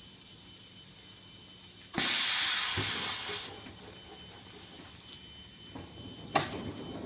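Pneumatic heat press opening: a sudden loud hiss of compressed air exhausting from the air cylinder about two seconds in, fading over about a second and a half as the heated upper platen lifts. Near the end, a single sharp metal clack as the lower table is pulled out.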